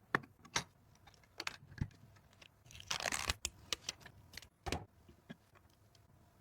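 Hands handling PC parts during a build: scattered sharp clicks and light knocks, with a brief rustle about three seconds in.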